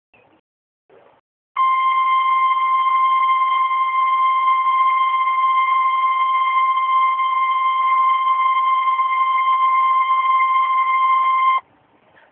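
Emergency Alert System attention tone for a tornado warning: a single steady electronic tone near 1 kHz, the 1050 Hz weather-radio warning alarm. It starts about a second and a half in, holds unchanged for about ten seconds and cuts off suddenly, after a few faint short blips.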